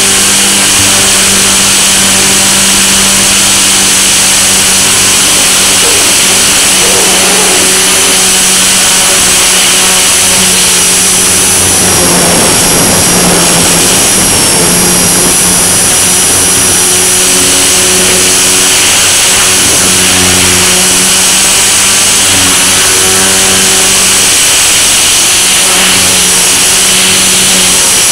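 Blade mCP X BL micro RC helicopter in flight, heard through its onboard camera: its electric motors give a loud, steady high-pitched whine over the hum of the spinning rotor. The pitch dips slightly about midway.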